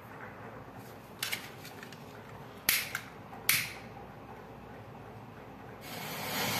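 Long-nosed lighter clicked three times. Near the end the match heads packed in the bottle's neck catch and flare with a hiss that grows louder.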